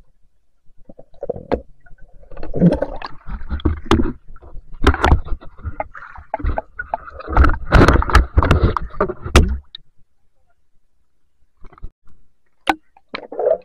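Water splashing and sloshing against a waterproof camera, with sharp knocks and clicks, as a speared fish is lifted out of the shallow river and handled. It goes quiet about ten seconds in, leaving a few single clicks near the end.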